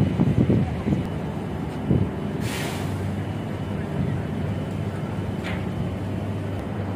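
Steady low drone of running machinery, with a short hiss about two and a half seconds in and a briefer, fainter hiss near five and a half seconds.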